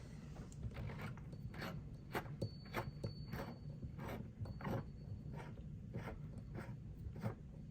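Faint, irregular clicks and rubbing of hands gripping and turning a kitchen faucet's metal nut to loosen it.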